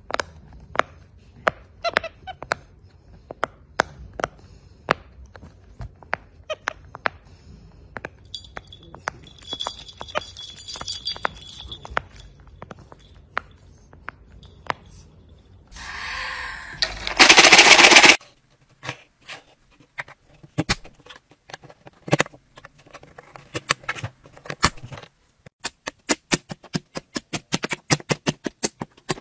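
Fidget toys being popped and clicked by hand: a long string of sharp pops, scattered at first and coming quickly near the end. A loud burst of rushing noise lasts about two seconds around the middle.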